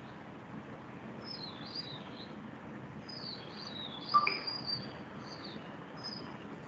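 Small birds chirping repeatedly in short, quick twittering calls over a steady background hiss. A brief sharp click, the loudest sound, comes about four seconds in.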